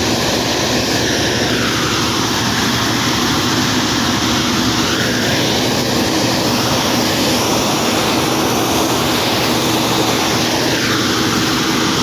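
A New Holland combine harvester running at close range as it cuts wheat, making a loud, steady mechanical drone with a constant low hum. A band in the middle of the sound slowly sinks and rises again.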